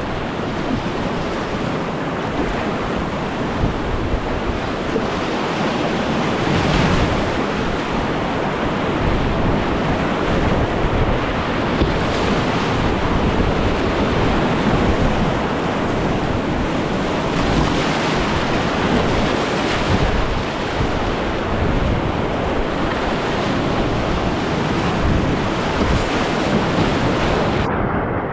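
Whitewater rapids rushing: a loud, steady noise of moving water.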